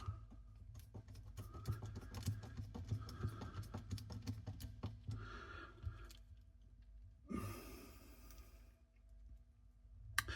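Faint, irregular small clicks and taps of parts and tools being handled while reassembling a cassette deck's tape transport mechanism, followed about seven seconds in by a short breathy hiss lasting about a second and a half.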